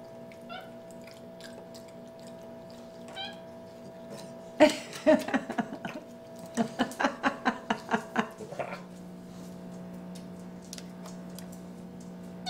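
White-faced capuchin monkey calling: a couple of faint short chirps, then about four and a half seconds in a quick run of short squeaky calls, several a second, lasting about four seconds.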